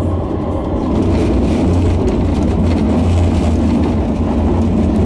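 Modern electric tram running along its street track, heard from inside the passenger car: a steady low rumble of motors and wheels on rail.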